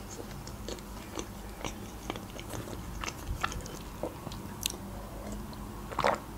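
Chewing and biting homemade pizza, with irregular wet mouth clicks and soft crunching of the crust. About six seconds in there is a slightly louder sound as she sips from a wine glass.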